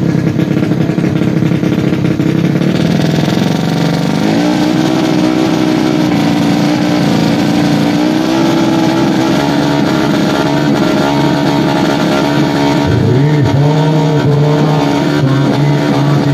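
Tuned 130cc four-stroke underbone drag bike engine revved and held at high rpm at the start line, its pitch wavering, with a dip and climb near the end.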